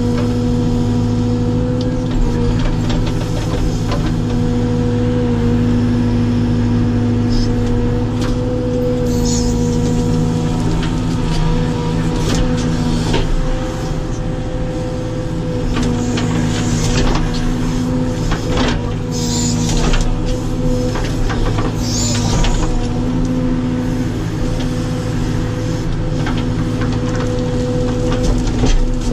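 Caterpillar 432F2 backhoe loader's diesel engine running steadily under digging load, heard from inside the cab, its pitch wavering slightly as the hydraulics work. A few knocks from the bucket and boom come near the middle, and short bursts of hiss come a few times in the second half.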